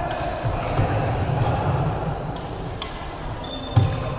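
Badminton rally in a large echoing sports hall: several sharp clicks of rackets striking the shuttlecock over a steady murmur of the hall, with a brief high squeak of shoes on the court floor and a heavier knock near the end.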